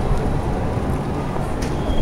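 City tram-street ambience: a steady low rumble of trams and traffic with wind buffeting the microphone, and a sharp click about a second and a half in.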